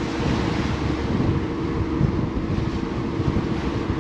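Boat underway: the motor drones steadily, with a rushing noise of wind over the top.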